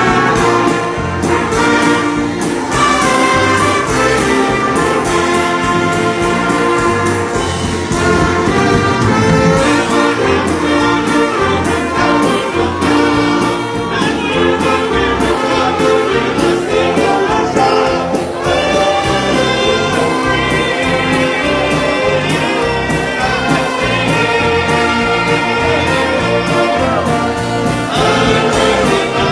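A live gospel brass band, many trumpets and trombones, playing a song over a steady beat.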